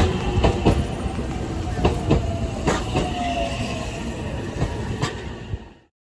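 Train running on rails, its wheels clattering with irregular sharp clicks and a faint, slowly falling squeal. It drops away and cuts off shortly before the end.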